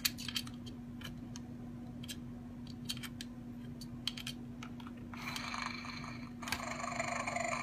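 Irregular clicking and tapping as a cockatoo's foot and beak handle a plastic toy dinosaur, followed near the end by two harsher noisy sounds, each about a second long.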